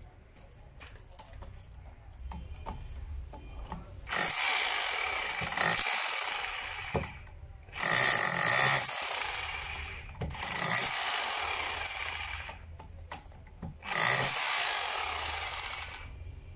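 Hanbo 920W three-function rotary hammer in chisel mode, its pointed chisel hammering into the edge of a concrete slab. It runs in three bursts starting about four seconds in, the middle one the longest.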